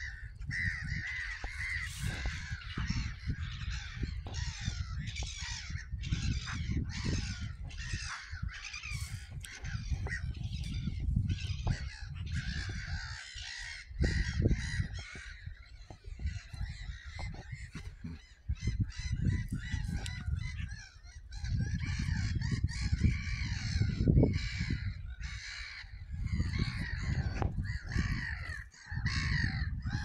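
A flock of gulls calling continuously, many harsh overlapping cries at once, with wind gusting on the microphone.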